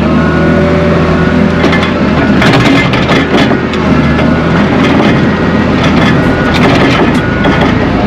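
Skid steer engine running steadily under load, heard from inside the cab, with frequent clanks, rattles and crunches from the bucket and machine from about two seconds in as it moves dirt.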